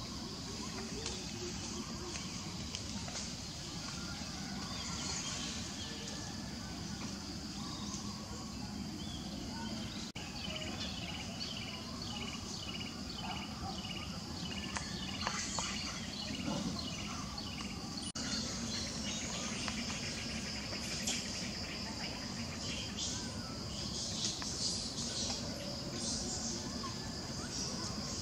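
Outdoor ambience: a steady, high-pitched drone of insects. Through the middle stretch a bird gives a run of short repeated chirps, about two a second.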